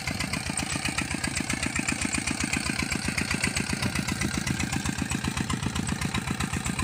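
Tubewell pump driven by a Peter-type diesel engine, running steadily with a fast, even chug as it draws water from the bore.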